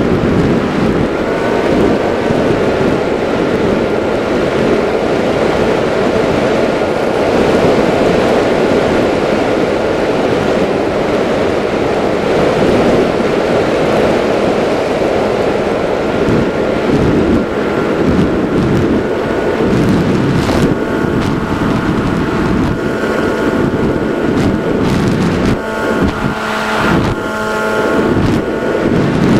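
RC flying wing's motor and propeller whining steadily under loud wind rush over the onboard camera's microphone, the pitch shifting slightly with throttle now and then.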